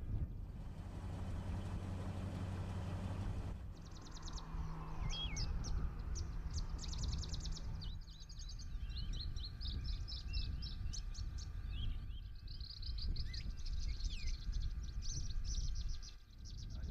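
Small birds chirping and trilling in quick repeated series, over a steady low rumble of wind and outdoor noise.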